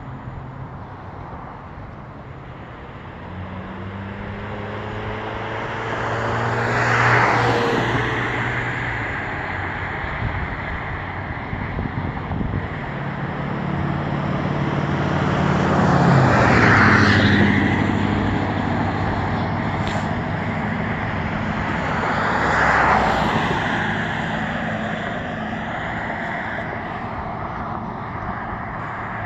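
Road traffic: three vehicles pass by one after another, each a rising and fading swell of engine and tyre noise, the second the loudest.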